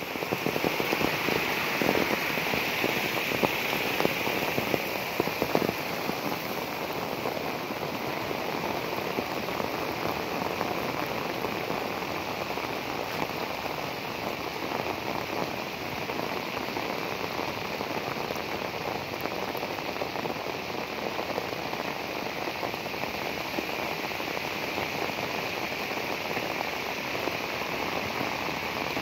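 Heavy rain falling steadily on flooded paddy fields, a continuous hiss of rain on water. For the first few seconds the rush of a swollen floodwater channel is louder, then the sound settles to the even rain.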